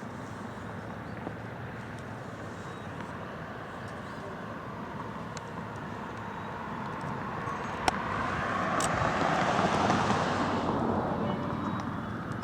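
A car passing on the road, its tyre and engine noise swelling to its loudest about ten seconds in and then fading. A single sharp click sounds just before eight seconds in.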